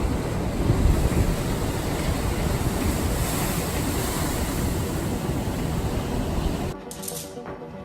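A loud, steady rushing noise, heaviest in the low end, that cuts off abruptly near the end, leaving faint music.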